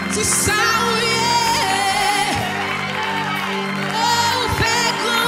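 Live worship music: a woman singing a Haitian Creole worship song into a microphone over sustained instrumental backing.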